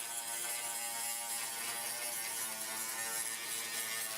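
A small electric motor buzzing steadily at one unchanging pitch.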